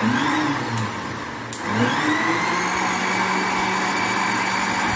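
Electric mixer grinder blending a mango, jaggery and milk shake: a short pulse of the motor rising then falling in pitch, a click, and then the motor spins up about a second and a half in and runs steadily.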